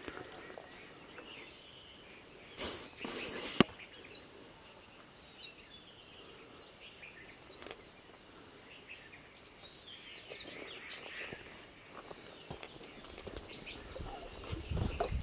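A songbird singing short, quick phrases of high rising-and-falling chirps, repeated every few seconds. A brief rustle about three seconds in is the loudest sound, and footsteps on the dirt trail come near the end.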